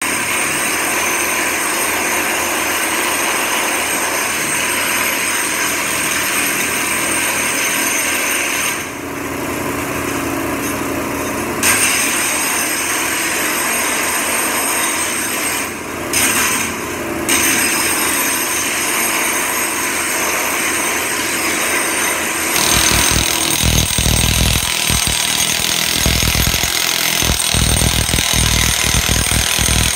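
Long-handled chipping hammer running continuously, its chisel bit breaking up and prying out a sawed-up concrete floor slab. It eases off briefly twice, and in the last several seconds, heard close to the bit, it pounds heavily and rapidly against the concrete.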